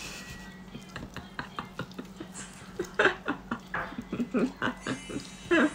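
Short, soft chuckles and murmured voice sounds from a woman, with scattered small clicks, mostly in the second half.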